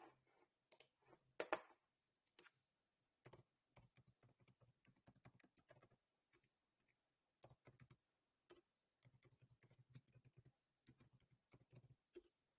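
Faint computer keyboard typing: bursts of quick key clicks with short pauses, and one louder knock about one and a half seconds in.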